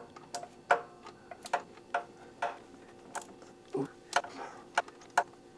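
Flex-head ratchet clicking in short, uneven swings on a bolt in a tight spot: about a dozen separate sharp metallic clicks, irregularly spaced.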